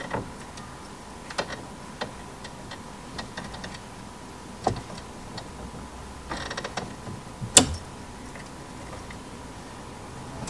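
Magnetic car window sunshade being pressed onto a rear door frame: scattered small clicks and taps as its magnets catch on the metal, with a short rattle just past the middle and the loudest sharp click soon after. A faint steady high hum sits underneath.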